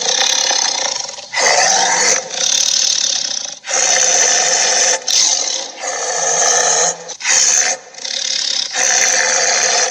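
Dinosaur roar sound effects: a string of about eight loud, rough roars, each half a second to a second and a half long, following one another with only brief breaks.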